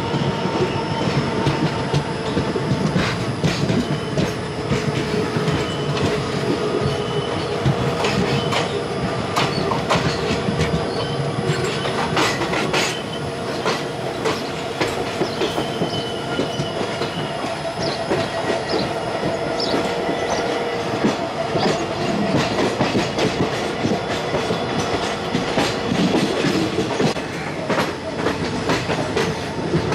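Passenger train running, heard from an open coach door: a steady rumble of wheels on rail with irregular clicks and clacks over joints and points, and a thin steady whine over it.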